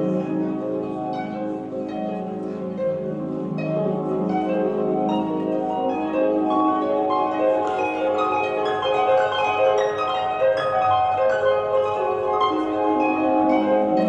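Classical music with a harp playing prominently over sustained lower notes, the accompaniment to a ballet solo.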